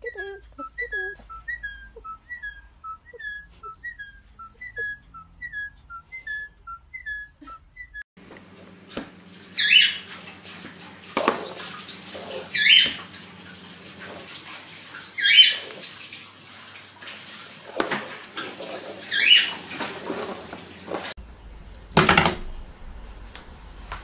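A cockatiel whistling a string of short, evenly spaced notes, about two a second. Then, over a steady hiss, loud shrill chirps from a lovebird every two to four seconds, and a single sharp knock near the end.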